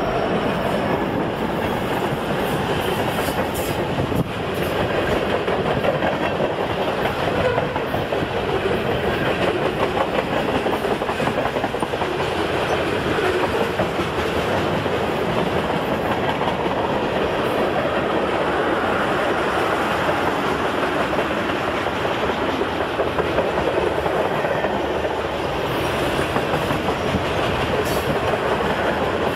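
A long CN mixed freight train's cars rolling past, their steel wheels running on the rails in a steady, unbroken rolling noise.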